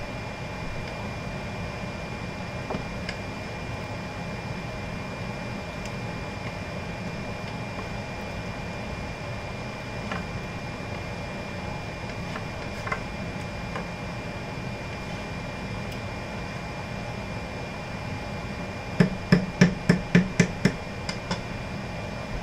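Steady hum with a faint high whine, and the light clicks of a wooden spoon stirring chili in a metal pot. Near the end, about eight quick knocks, roughly four a second: the spoon tapped on the pot's rim.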